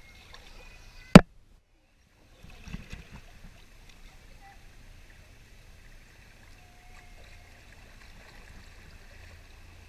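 Kayak on a river: low, steady water and paddling noise with a couple of soft knocks, and a faint steady high tone underneath. The loudest thing is a single sharp click about a second in, followed by a second of dead silence.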